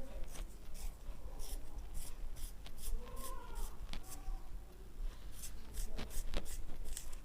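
Graphite pencil being turned in a small handheld plastic sharpener, the blade shaving the wood and lead in repeated short scraping strokes, about two or three a second.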